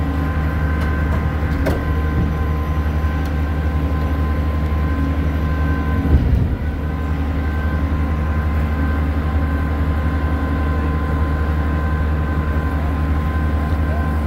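Boat engine running steadily under way, a constant low drone with a few steady tones over it. A brief low thump about six seconds in is the loudest moment.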